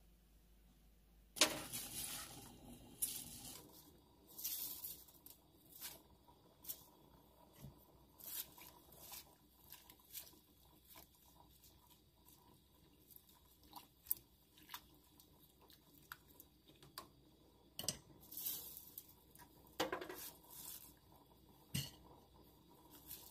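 A wooden spoon stirring greenbrier shoots and leaves in a steel pot of liquid: irregular rustles, swishes and light knocks against the pot. There is a louder burst about a second in and another cluster near the end.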